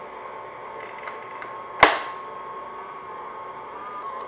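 Stand mixer running steadily on low speed, its motor giving a steady whine as the paddle beats shortbread dough in a glass bowl while the dough starts to form a ball. A few faint ticks and one sharp knock sound near the middle.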